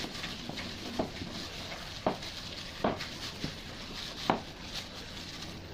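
A hand in a plastic glove squeezing and mixing sticky chicken-and-tapioca dough in a plastic bowl. Each stroke gives a short soft sound, roughly one a second, the strongest a little past four seconds in.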